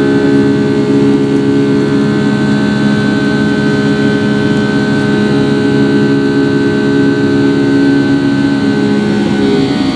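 Rolls-Royce RB211-535E4B turbofan of a Boeing 757-300 at climb-out thrust, heard from the cabin just ahead of the wing. It makes a loud, steady drone carrying the engine's typical buzz-saw of many steady tones. The tones shift slightly near the end.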